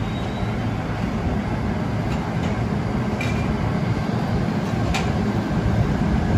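New York City subway train running through the station: a steady heavy rumble with a few sharp clicks from the wheels, the clearest about five seconds in.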